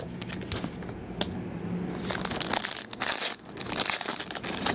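Foil trading card pack wrapper crinkling and crackling as it is handled and pulled open, loudest in bursts over the second half. Before that, light rustles and clicks of cards being handled.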